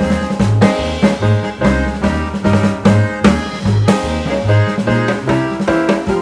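Background music: an upbeat jazzy tune with drum kit, walking bass and brass.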